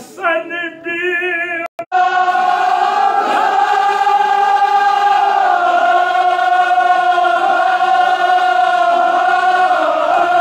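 Kashmiri marsiya, a Shia elegy, sung in unison by a group of voices holding one long drawn-out note that rises and falls slowly in pitch. A single wavering voice leads in briefly before the group's singing starts about two seconds in.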